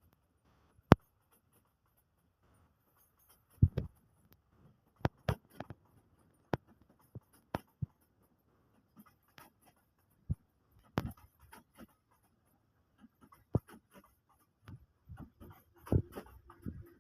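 Scattered short, sharp clicks and taps at uneven intervals, about a dozen in all, with near silence between them and a small cluster near the end.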